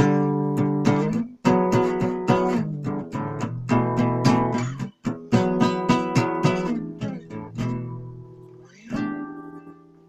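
Acoustic guitar strummed in a steady rhythm of chords. About seven seconds in a chord is left to ring and fade, then a chord slides up in pitch and rings quietly near the end.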